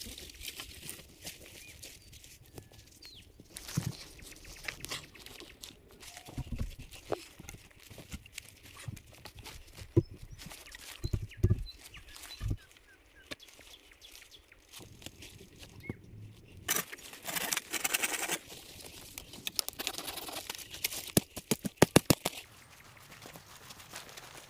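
Irregular rustling, crunching and sharp knocks of branches and brush being handled, with a longer rustling burst about two-thirds of the way in and a quick run of clicks near the end.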